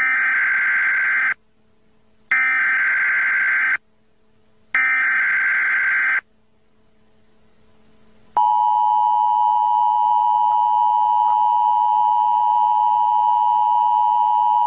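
Emergency Alert System tones announcing a severe thunderstorm warning. First come three bursts of the warbling SAME digital header, each about a second and a half long with a second's pause between. About eight seconds in, the steady two-tone attention signal starts and holds to the end.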